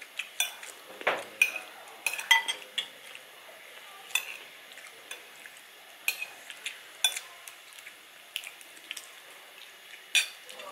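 Cutlery and dishes clinking during a meal: irregular sharp clicks and short ringing clinks, a few at a time with pauses between.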